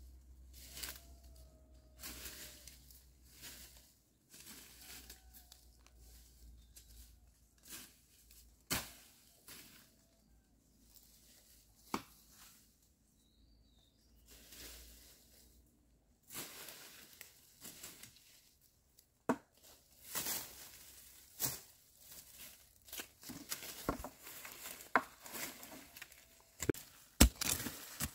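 Footsteps crunching and rustling through dry bamboo leaf litter, with scattered sharp snaps of dry stalks and twigs. Near the end a denser run of sharp strikes as a hand tool digs into the leaf-covered soil.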